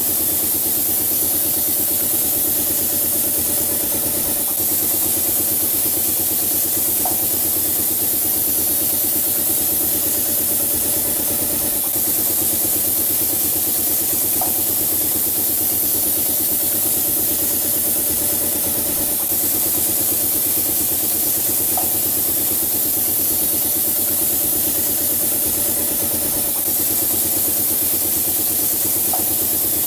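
Automatic wall-painting rig running: a compressed-air paint spray gun hissing steadily over the continuous hum of its motors and air compressor. A faint short tick sounds about every seven seconds.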